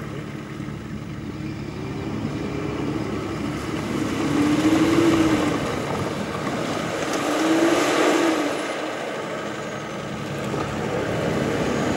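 Four-wheel-drive SUV engine working through deep muddy ruts, revving up and easing off twice, about five and eight seconds in.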